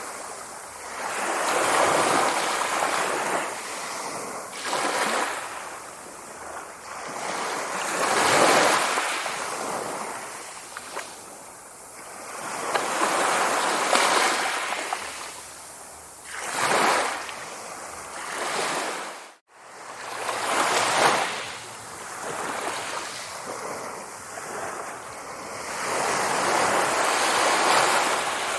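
Sea waves breaking and washing in, swelling and fading every few seconds, with a brief cut-out of the sound about two-thirds of the way through.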